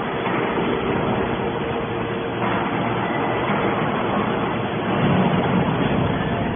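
Scrap metal baler running: a steady machinery noise with a constant hum, growing a little louder partway through.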